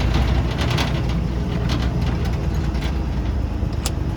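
Jeep CJ5's 4.2 L straight-six running steadily at low speed, crawling in four-wheel-drive low range, with a few scattered clicks and knocks over the engine drone.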